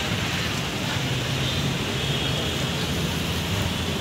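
Steady roadside background noise: a low, even traffic rumble from the road.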